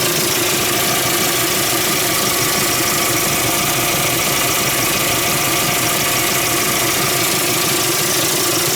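GAZ Sobol van's engine idling steadily, with an extra knocking noise that the owner likens to something going "ukh" under the hood; it is the sign of a cracked, worn accessory drive belt knocking.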